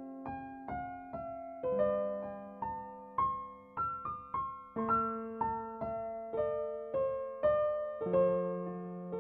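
Background piano music: a gentle melody of single notes, about two a second, over held low notes.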